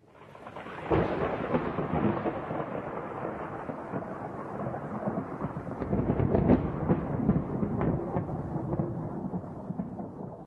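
Thunder: a sharp crack about a second in opens a long rolling rumble, which swells again with crackling about six seconds in, fades and then cuts off suddenly.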